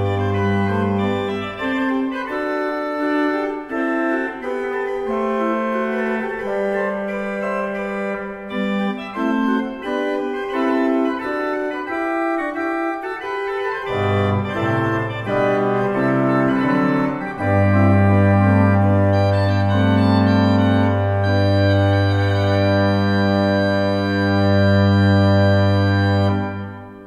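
Pipe organ by Marcussen & Søn (2018) playing a Baroque chorale prelude: busy moving lines over a pedal bass, then a final chord with a deep bass note held for about nine seconds, released near the end with the church's reverberation dying away.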